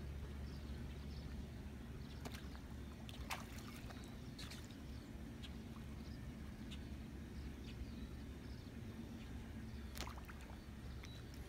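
Small splashes and sloshing of water as two turtles wrestle at the surface, a few sharp splashes standing out, over a low steady rumble.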